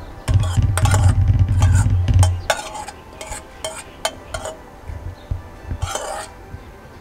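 Metal spoon scraping and tapping wet mealie rice off an enamel pot lid into the pot: a run of clinks and scrapes. A low rumble runs under the first two seconds.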